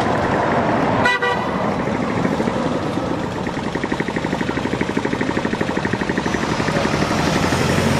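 Roadside motor-vehicle noise: a brief horn toot about a second in, then an engine running with a fast, even putter from about halfway through.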